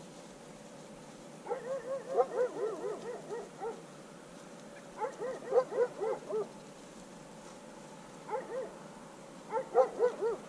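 English springer spaniel giving quick runs of short, high whining yelps, four bursts a second or two apart.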